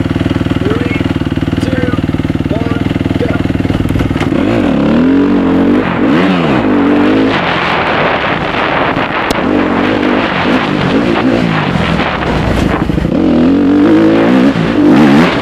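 Suzuki RM-Z250 dirt bike's single-cylinder four-stroke engine idling steadily, then about four seconds in revving hard and pulling away, its pitch climbing and dropping again and again as it runs up through the gears.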